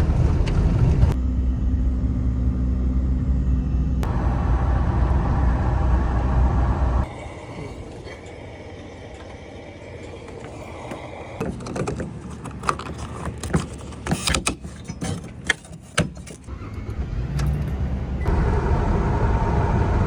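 Portable gasoline generator running under load, a steady low hum. About seven seconds in it drops away to a quieter stretch with scattered clicks and clatter of handling, and a steady louder sound returns near the end.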